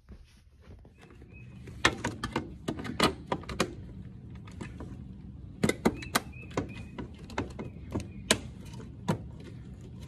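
Sharp, irregular clicks and knocks of hard plastic being handled (a clear acrylic sheet and a white plastic air-conditioner exhaust-hose window adapter) in two runs of taps, over a steady low hum.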